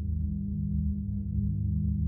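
Meditation drone of steady, low layered tones, the lowest ones fluttering quickly, with no beat or breaks.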